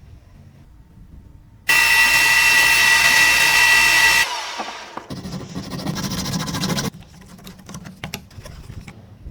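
A power tool starts abruptly about two seconds in and runs with a steady high whine for about two and a half seconds, then cuts off. A lower, rougher grinding noise follows for about two and a half seconds, then scattered scraping and clicks.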